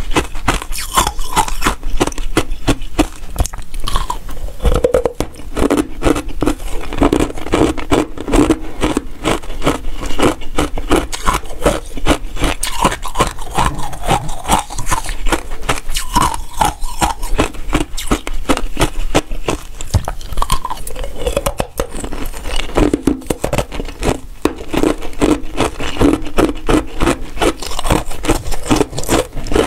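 Frozen basil seed ice being bitten and crunched close to a clip-on microphone: a dense, continuous run of sharp crackling crunches.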